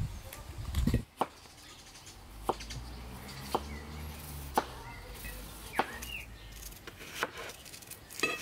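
Kitchen knife cutting through onions onto a wooden cutting board: single sharp knocks of the blade on the board, about one a second, with a faint low hum underneath.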